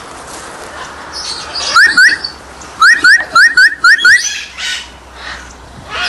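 A parrot giving short, sharp rising whistled calls: two about two seconds in, then a quick run of about six a second later.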